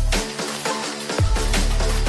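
Background electronic music with a heavy bass line and a steady drum beat; the bass drops out briefly and comes back about a second in.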